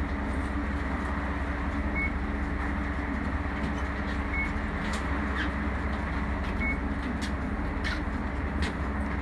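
Bus engine idling with a steady low hum. A short high beep repeats about every two and a half seconds, and scattered clicks and knocks come in the second half.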